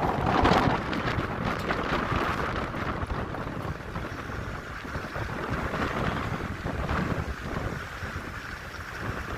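Vehicle driving along a rough, dusty dirt track: a steady rumble and rattle, with wind buffeting the microphone and a louder swell about half a second in.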